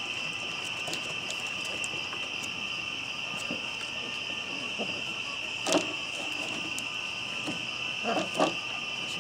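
Night insect chorus of crickets: a steady, high-pitched trilling that never stops. A few brief louder sounds stand out over it about halfway through and twice near the end.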